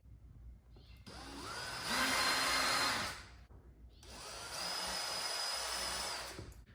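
Power drill running in two bursts of about two seconds each, the motor spinning up at the start of each and then holding a steady whine.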